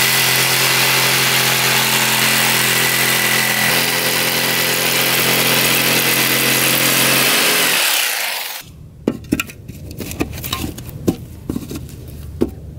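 Black+Decker corded jigsaw cutting a round hole through OSB board, running steadily for about eight seconds, then winding down and stopping. A few light knocks and taps follow.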